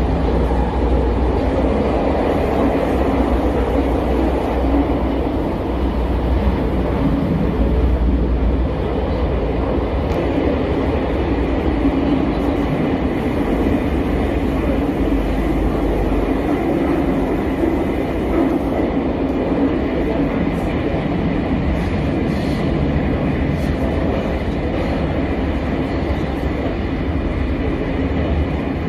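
Bucharest Metro train running between stations, heard inside the carriage as a steady, loud rumble.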